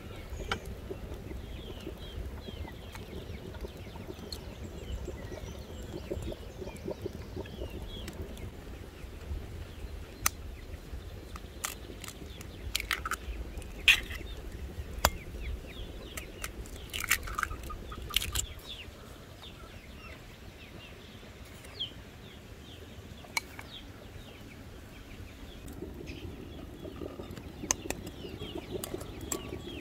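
Sharp clicks and taps of eggs being cracked on the rim of a glass bowl and of utensils and bowls touching glass, over a background of hens clucking and small birds chirping. A low rumble drops away about two-thirds of the way through.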